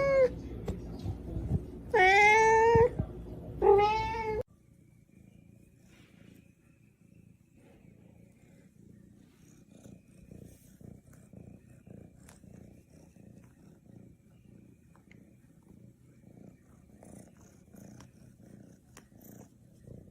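A domestic cat meowing loudly, two long rising-and-falling meows in the first few seconds, which then stop suddenly. They give way to a faint, low, rhythmic cat purr.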